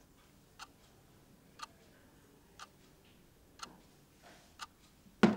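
A clock ticking steadily, one tick about every second. Right at the end, loud sharp knocks begin.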